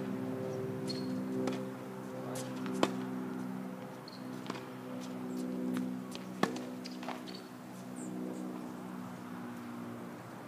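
Two sharp pops of a tennis racket striking the ball, about three and a half seconds apart, over sustained chords of background music.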